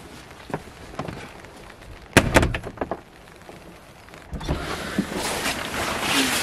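A wooden shed door shutting with two or three loud knocks, the bang and latch clatter about two seconds in, after light steps and clicks. Near the end a steady hiss of background noise comes in.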